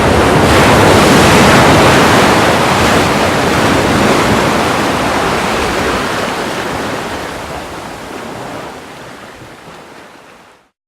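Ocean surf: a wave swells up and washes in, then the rushing slowly dies away to silence near the end.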